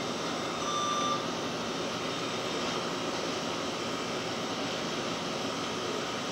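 Steady background noise of a fast-food restaurant's kitchen and counter equipment and ventilation, with one short electronic beep about a second in.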